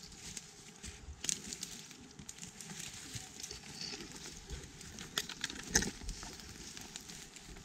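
Dry twigs and woodland debris crackling and snapping, in irregular cracks and knocks with a few louder snaps between five and six seconds in.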